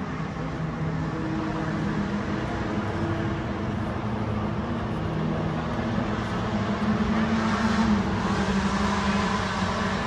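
A car engine running nearby, a steady low hum that grows louder to about eight seconds in, then eases off slightly.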